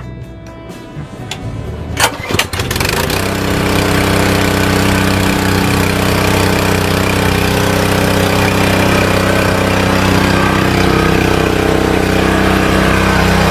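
Westinghouse WPX3400 pressure washer's 212cc four-stroke engine being pull-started: a few sharp knocks about two seconds in, then it catches about three seconds in and runs at a steady speed.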